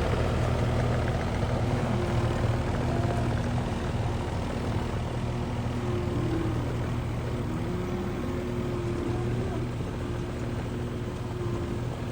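Engine of a joystick-operated machine running steadily, its pitch rising and dipping slightly now and then.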